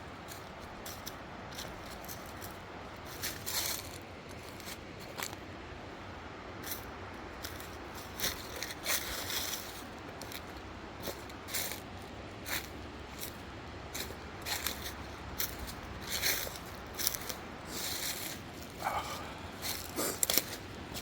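Footsteps on rough ground off-trail, an irregular run of short crunching and scraping steps.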